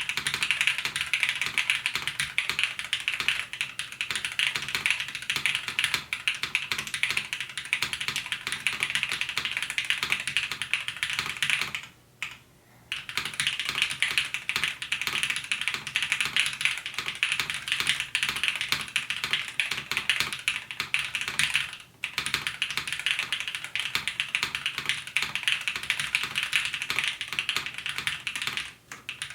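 Continuous fast typing on a custom mechanical keyboard with linear switches (Cherry-topped Everglide Peacock Blues) in an o-ring-mounted 5052 aluminium plate: a dense run of key clacks. It breaks off for about a second about twelve seconds in, and briefly twice more later.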